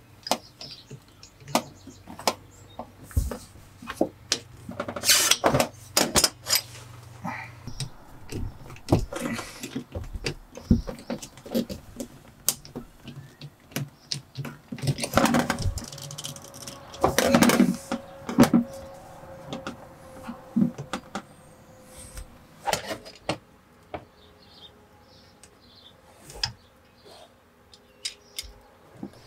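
Irregular clicks, knocks and scrapes of hand plumbing work: brass fittings and a ball valve being screwed onto a plastic water tank, and clear braided vinyl tubing being handled against a sheet-metal floor. The loudest clatters come around five seconds in and again from about fifteen to eighteen seconds.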